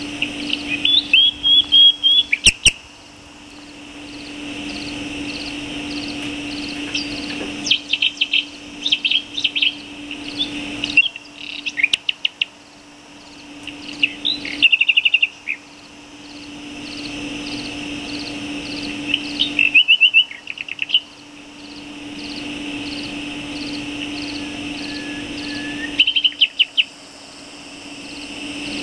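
Songbird singing in short bursts of rapid, high, repeated notes, five phrases spaced several seconds apart, over a steady background drone. A single sharp click sounds about two and a half seconds in.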